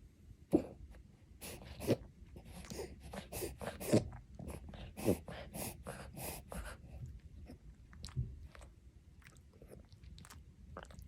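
Miniature dachshund reverse sneezing: a run of sharp, noisy nasal inhalations, about two a second, that thins out after about seven seconds. The owner puts her dog's episodes down to changes in air pressure.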